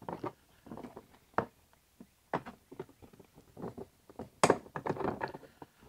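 Hand tools, pliers and screwdrivers, knocking and clattering against the plastic of a Milwaukee Packout drawer as they are picked up and moved: a run of irregular clicks and knocks, loudest about four and a half seconds in.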